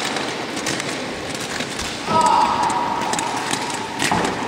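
Roller-ski wheels rolling and scraping on a hard rink floor, with scattered clicks and knocks of the skis. About two seconds in, a steady high tone starts and holds for about two seconds, then stops.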